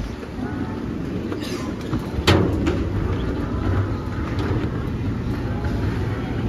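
Wind buffeting the microphone as a steady low rumble, with one sharp knock a little over two seconds in.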